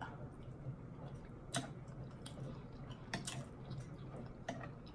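A person quietly chewing a mouthful of shrimp and grits, with a few short sharp clicks.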